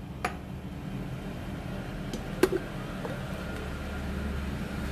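A few light clicks and knocks of plastic and glass as an inverted AeroPress is handled and flipped onto a glass server. The sharpest knock comes about halfway through, over a steady low hum.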